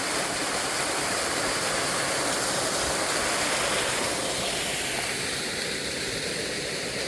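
Small waterfall pouring steadily, a constant rush of falling water that softens a little about four seconds in.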